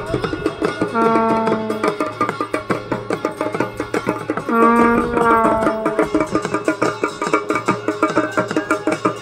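Garhwali ritual dhol drumming a fast, steady beat. Two long held notes sound over it, one about a second in and one around the middle.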